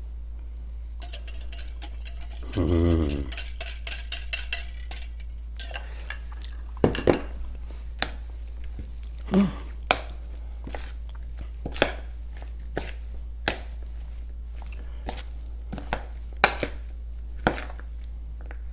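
A spoon stirring and tossing a quinoa and vegetable salad in a large bowl: scrapes and clinks against the bowl, busiest in the first few seconds, then irregular single clicks about once a second, over a steady low hum.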